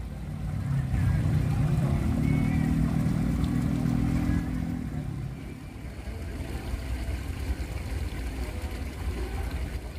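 Engine of a motor vehicle running, a steady low hum that is loudest in the first half and fades out about five seconds in, over a continuous low rumble.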